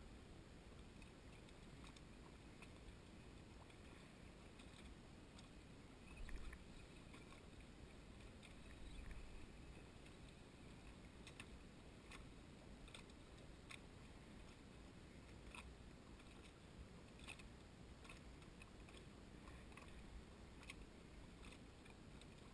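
Near silence: faint lapping of small waves, with scattered light irregular clicks and two soft low thumps, the first about six seconds in and the second about nine seconds in.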